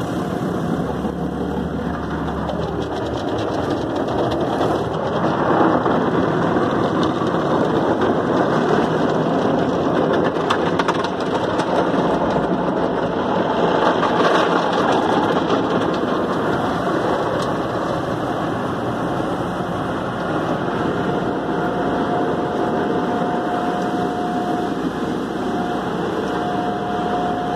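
Automatic tunnel car wash heard from inside the car cabin: water spray and soapy washing equipment working over the windows and body, a steady rushing noise that swells now and then. A thin steady machine whine joins in about three-quarters of the way through.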